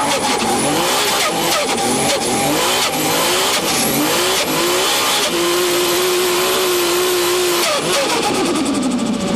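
Turbocharged car engine revving hard again and again. Each time the pitch climbs, a high turbo whistle rises with it, and it breaks off sharply between pulls. Around the middle it holds one steady pitch for a couple of seconds, then drops.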